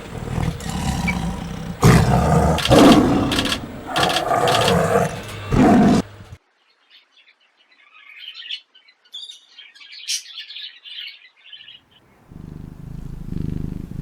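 Loud, low calls of a large animal, several in a row for about six seconds, then a pause with faint high chirping like birds; a low rumbling sound starts near the end.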